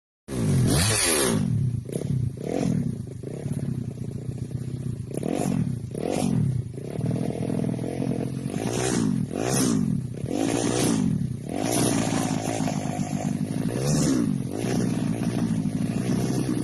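Drag-tuned motorcycle engine revved in quick, repeated throttle blips, each rising and falling in pitch, about a dozen in the first twelve seconds. It then settles to a steadier run, with one more blip near the end.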